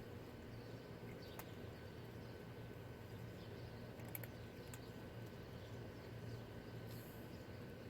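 Cats eating dry kibble: a few faint crunches and clicks over a steady low background hum.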